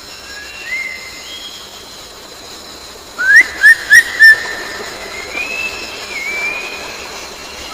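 A bird's whistled song: clear notes that slide up and down in pitch, with four loud, quick rising chirps about three seconds in.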